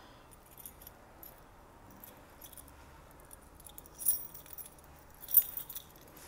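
A bunch of keys jingling in a hand, with two louder shakes of jingling, one about four seconds in and one about five and a half seconds in.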